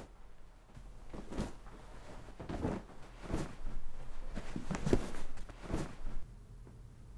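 Packing a fabric suitcase: a string of soft rustles and thuds, roughly one every second, as clothes go in and the case is handled, stopping about six seconds in.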